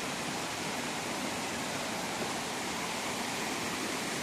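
Steady rushing of falling water from a nearby mountain waterfall, an even hiss with no breaks.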